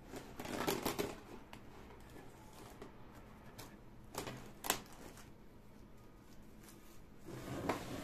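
Plastic cling film crinkling as it is pulled from its box and stretched over a glass baking dish, with two sharp snaps of the film about halfway through and more crinkling near the end as it is pressed down around the dish.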